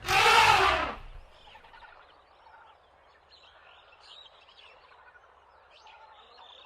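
A loud rushing burst lasting about a second at the start, then faint short chirps and calls of birds or fowl.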